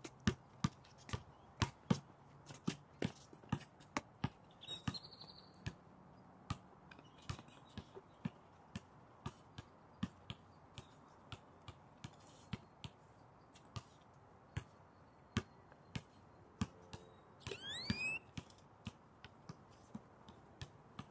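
Basketball dribbled on an outdoor court: an irregular run of sharp bounces, one or two a second. A brief rising squeal just before the end.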